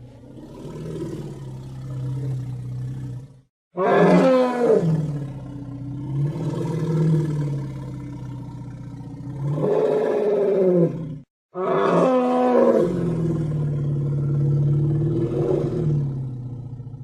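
Created dinosaur roar sound effects for Agathaumus, a large horned ceratopsid: long, low, deep bellowing roars. One roar cuts off about three seconds in, a loud one starts just after and rises near the ten-second mark, and a third starts soon after that and fades near the end.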